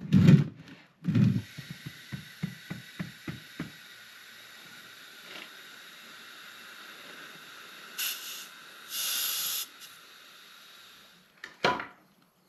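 Skid steer tire being mounted on its rim: two heavy thumps, then a quick run of ratchet-like clicks, about three a second. A steady hiss follows, with two louder bursts of air about eight and nine seconds in, and one sharp knock near the end.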